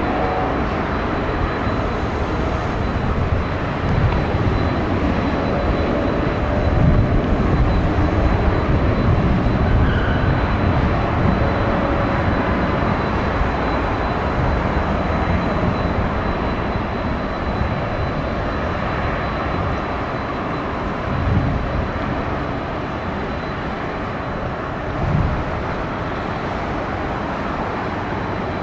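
Jet airliner engine noise, a steady rumble that swells slightly and eases off.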